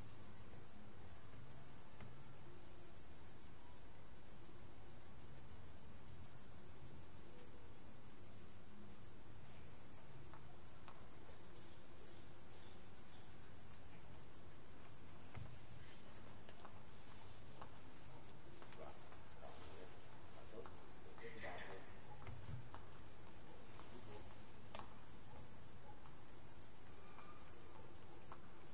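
Crickets trilling in a steady, high-pitched chorus that breaks off briefly every few seconds.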